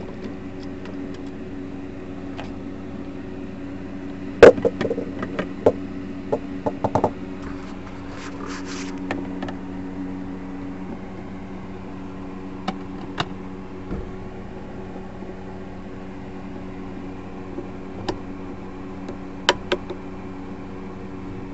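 Screwdriver and hand handling of an old Brother sewing machine's casing as its top cover is unscrewed and lifted off: scattered clicks and knocks of metal and plastic, the loudest about four and a half seconds in and a quick run of them just after. A steady low hum runs underneath.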